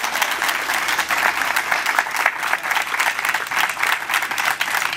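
A crowd applauding, many hands clapping at once, holding steady.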